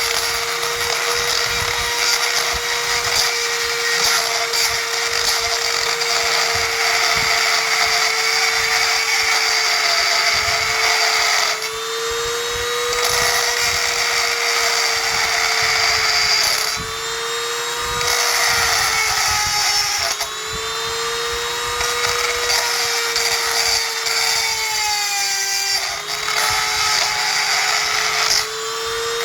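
Power grinder running steadily, grinding away a screw head eaten by rust so a faucet knob can come off. Its whine sags in pitch and recovers several times as it is pressed into the metal, with a few brief dips in loudness.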